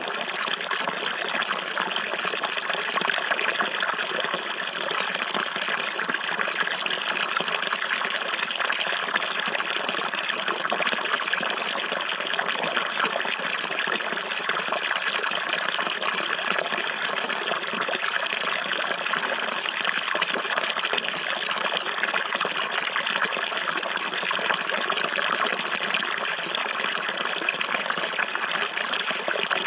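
Running water: a steady, even trickling flow with no breaks or changes.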